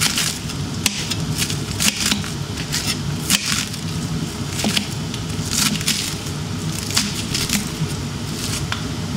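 Chef's knife slicing through a raw cabbage wedge on a plastic cutting board: a run of irregular crisp crunches and blade taps on the board, over a steady low background hum.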